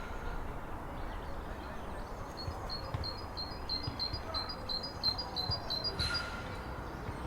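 Great tit singing its repeated two-note song, about three phrases a second, over a low steady rumble. There is a brief hiss about six seconds in.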